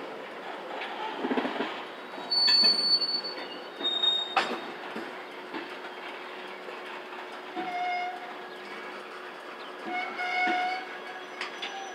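Train rolling past, its steel wheels clicking over rail joints, with loud surges about two and four seconds in and a few short high squeals from the wheels.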